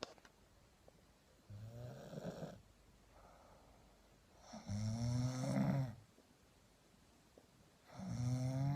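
A sleeper snoring: three low, buzzing snores about three seconds apart, the second and third louder and longer than the first, with quiet breathing between them.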